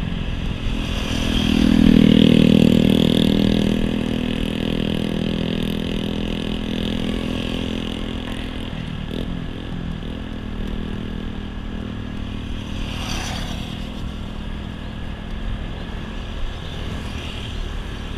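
Motor vehicle engine running with steady road noise, swelling loudest about two seconds in, then settling back to a steady hum.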